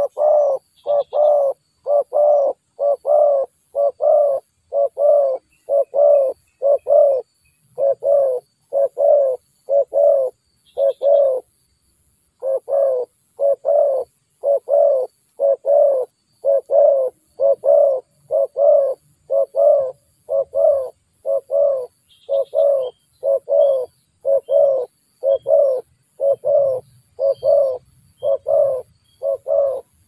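Spotted dove cooing over and over, short doubled coos at an even, fast pace of about one and a half a second, with a brief pause about twelve seconds in.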